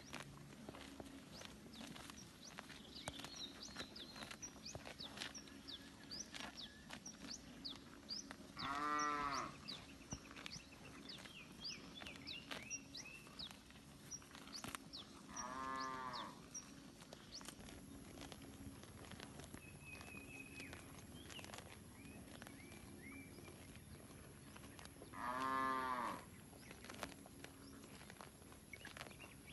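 Village cattle mooing: three separate calls, each about a second long, several seconds apart, with quieter background noise in between.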